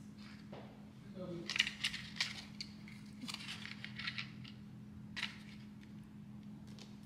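Coins clicking and clinking as they are set down on paper bills in a cardboard pizza box, in short clusters of light clicks, over a faint steady low hum.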